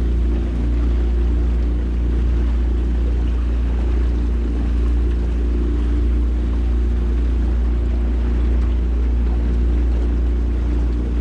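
9.9 horsepower outboard motor on a small aluminium jon boat running steadily under way, a constant loud drone with no change in speed.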